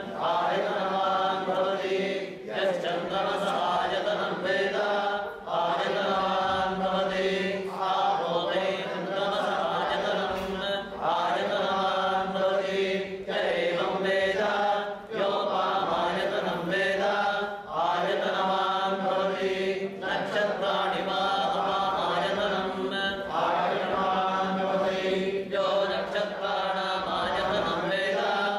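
A group of priests chanting Vedic Sanskrit mantras together in a steady recitation, phrase after phrase, with short breaks for breath every few seconds.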